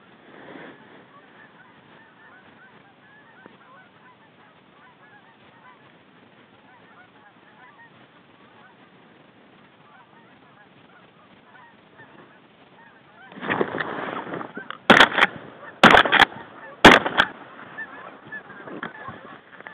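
A flock of Canada geese honking as it comes in over decoys, faint at first. About two-thirds of the way in comes a louder burst of noise, then three shotgun shots about a second apart.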